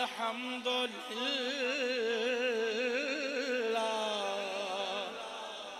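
A man's voice singing a long, wavering held note with heavy vibrato in an unaccompanied religious recitation (manqabat), fading away near the end.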